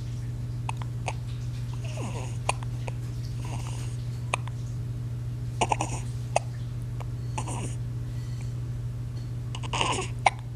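A baby hiccuping again and again at irregular intervals, each hiccup a short sharp catch, some with a small falling squeak of voice, over a steady low hum.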